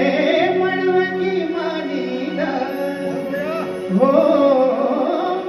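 A man singing into a microphone over an electronic keyboard holding sustained chords; his voice comes in louder about four seconds in.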